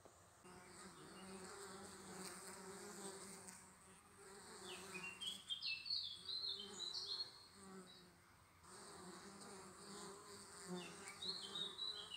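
Honeybees buzzing at the entrance slit of a wooden log hive, a steady hum as pollen-laden foragers fly in and out. A bird chirps a quick series of high notes in the middle.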